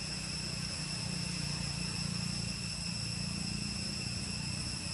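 Steady, high-pitched drone of an insect chorus, held on one unchanging pitch with higher overtones, over a low rumble.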